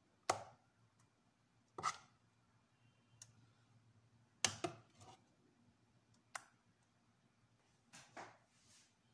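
Metal spoon clinking against the glass blender bowl and a plastic tub while scooping blended tomato: a handful of short, sharp taps at uneven intervals.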